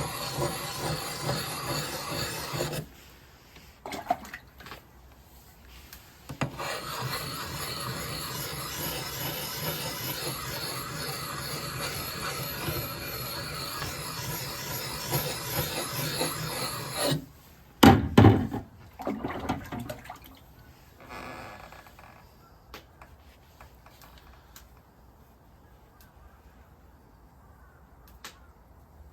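Continuous rasping, scraping noise that stops briefly after about three seconds and resumes. It cuts off a little past the middle, followed by a few heavy low thuds and then faint scattered clicks.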